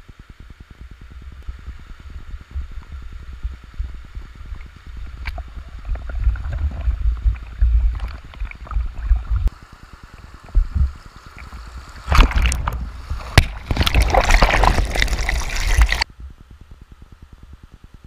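River water sloshing and splashing against a camera held at the water's surface, with low rumbling and a few sharp knocks. The splashing is loudest from about twelve to sixteen seconds in, then cuts off suddenly.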